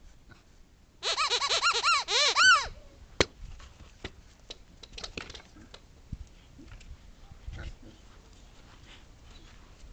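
Rubber squeaky ball squeezed rapidly over about a second and a half, a run of high squeaks that rise and fall in pitch. A single sharp click follows, then only faint scattered taps.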